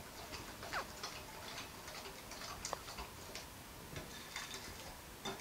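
Wire whisk stirring thin cake batter in a glass bowl, the wires clicking lightly and irregularly against the glass.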